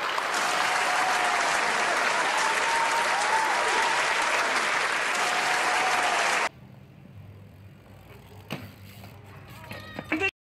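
A large crowd applauding, loud and dense, with a few wavering pitched tones over the clapping. It cuts off abruptly after about six and a half seconds, leaving a quiet low hum with a few sharp knocks near the end.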